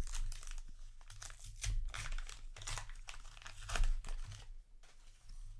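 Foil trading-card booster pack wrapper crinkling and rustling as it is handled, in irregular bursts of varying strength.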